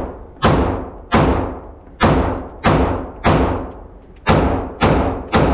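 Gunshots fired one after another at a steady pace, eight in all, about one every 0.6 to 1 second, each followed by a short echoing tail.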